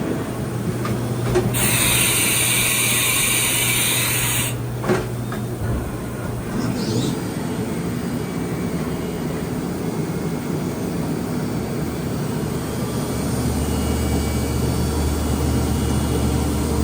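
Haas VF-3 CNC vertical machining centre running, a steady mechanical hum. A loud hiss lasts about three seconds near the start, and the hum shifts to a lower pitch near the end.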